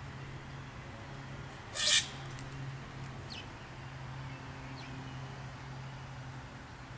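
A steady low hum, broken about two seconds in by one short, harsh bird call. Two faint, high, quick falling chirps follow.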